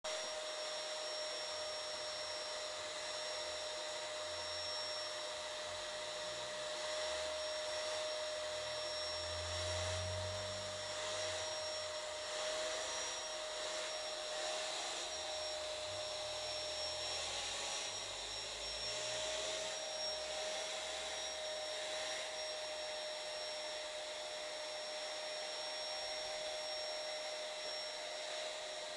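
A steady whine holding one pitch, wavering slightly now and then, over a constant hiss, with faint low rumbles in the middle.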